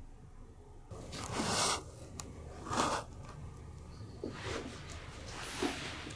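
Soft rustling and shuffling noises in a quiet room, with two louder swishes about one and three seconds in and fainter ones near the end.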